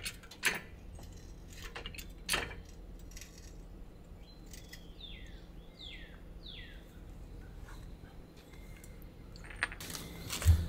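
A few faint metallic clinks and knocks, spread out and not in a rhythm. In the background a bird calls several times with short chirps that fall in pitch.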